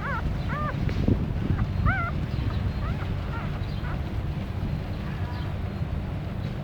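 Newborn puppies squeaking in short, high, arched whimpers, several in the first two seconds and fainter ones after, over a steady low hum.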